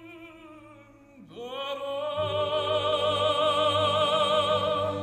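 Opera recording as background music: a tenor voice with wide vibrato lets one note fade, then swoops up to a new high note just over a second in and holds it. The orchestra comes in beneath the held note about two seconds in.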